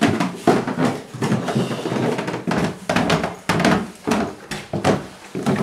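Footsteps going quickly down a flight of indoor stairs, a thud about every half second.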